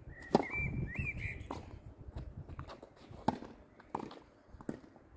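Tennis balls being struck by rackets and bouncing on a hard court during a doubles rally: a series of about seven sharp pops, the loudest about a third of a second in.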